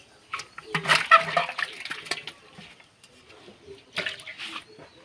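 Water sloshing and splashing as a small aluminium bowl scoops live stinging catfish out of a large aluminium pot, in irregular bursts, loudest about a second in. Near the end comes a pour of water and fish into a metal basin.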